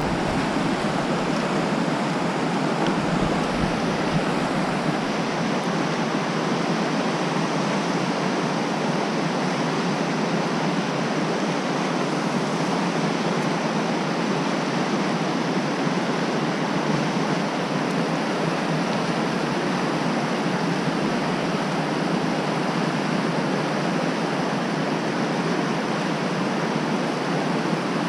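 Whitewater rapids rushing steadily: an even, unbroken roar of fast river water.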